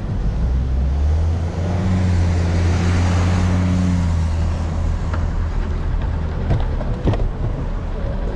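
Brink's armored truck passing close, its low engine drone swelling to a peak about three seconds in and fading by about five seconds. A few sharp knocks follow near the end.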